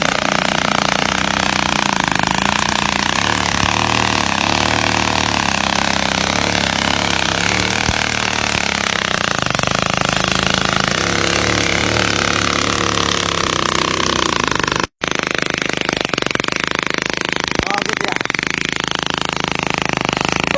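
Motorcycle engine running, its pitch rising and falling slowly with engine speed, over a steady rushing noise. The sound drops out for an instant about 15 seconds in.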